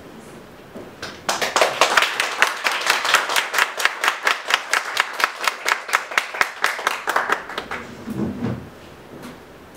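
Small audience clapping for several seconds, with one pair of hands close by giving quick, even claps. It starts about a second in and dies away near the end.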